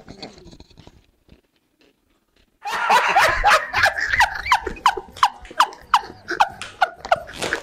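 A woman laughing hard, a quick run of high ha-ha sounds at about three a second, beginning a little over two seconds in.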